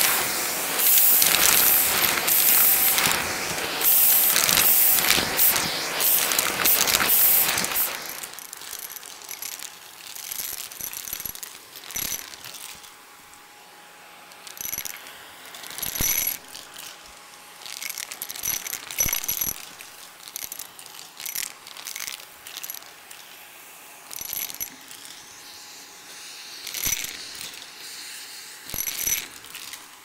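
Vacuum cleaner running over carpet, with coins rattling and clicking as they are sucked at, loud for about the first eight seconds. It then drops to a faint hum, broken by scattered, separate metallic clinks of coins.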